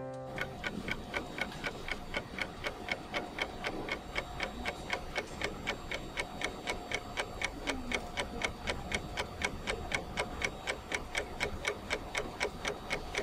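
Clock ticking sound effect: a fast, steady tick about four times a second.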